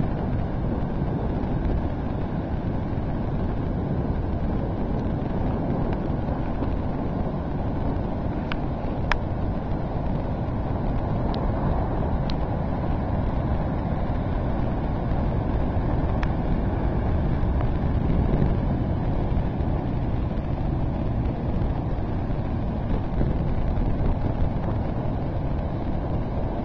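Steady rush of wind and surf on a beach after a typhoon, with wind buffeting the microphone.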